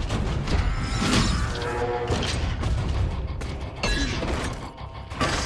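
Action-film battle sound of giant robots fighting: repeated metallic crashes and clanks with deep booms over a constant low rumble, under film score music.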